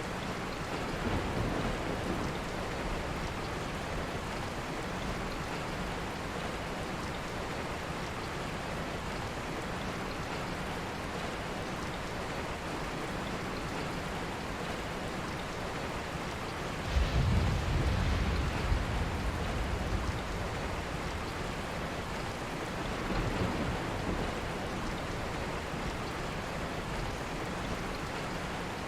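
Steady rain with an even hiss, joined about two-thirds of the way through by a sudden low rumble of thunder lasting a few seconds, with fainter rumbles near the start and again a little after the main one.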